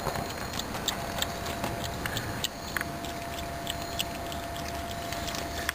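Raccoon chewing and cracking acorns: scattered small crunches and clicks, over a steady thin hum.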